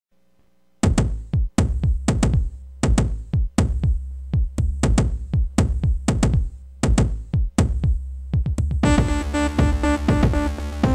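Opening of an industrial/gothic rock song. A programmed beat of deep, pitch-dropping drum hits over a low bass drone starts about a second in. Layered synthesizer chords join near the end.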